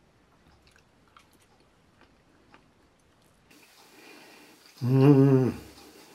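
A person chewing a mouthful quietly, with faint small clicks, then a short, loud hummed "mmm" of enjoyment about five seconds in, its pitch wavering.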